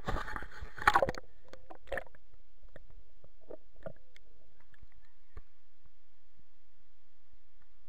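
Water splashing and sloshing as a camera dips into a shallow creek. Then a muffled, steady low rumble with faint scattered clicks while the camera is held underwater.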